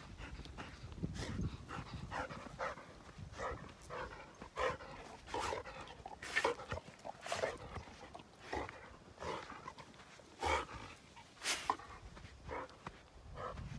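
A dog panting in short breaths, about two a second, with footsteps on loose sand.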